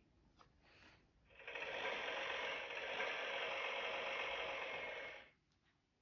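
Sound chip of a children's noisy board book playing a tractor engine effect through its small speaker. The engine noise is steady and comes in about a second and a half in, runs for about four seconds, then cuts off sharply.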